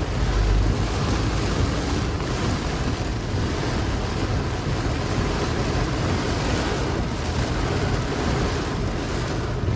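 Heavy rain pouring onto a slow-moving car, mixed with tyre and road noise, heard from inside the car as a steady, even rush of noise with a low rumble underneath.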